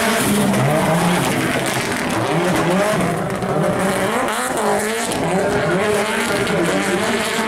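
Subaru Impreza rally car's turbocharged flat-four engine revving hard, its pitch rising and falling again and again through gear changes, over the hiss of tyres sliding on loose dirt.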